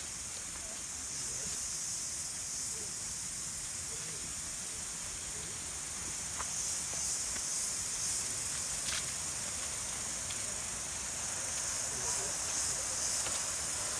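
A steady high-pitched insect drone that swells a little about halfway through, with faint distant voices and a few light ticks under it.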